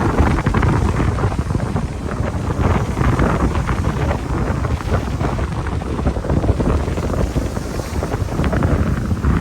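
Wind buffeting the microphone, a heavy low rumble throughout, with the wash of surf on the beach faintly underneath.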